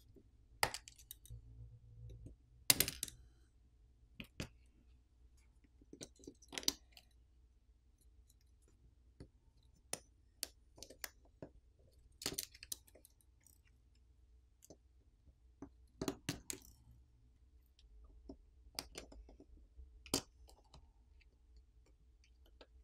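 Light, sharp clicks of a plastic pry pick popping flex-cable connectors off a Samsung Galaxy S21 Ultra's main board and tapping the phone's frame. About a dozen scattered clicks come a second or two apart, some in quick pairs.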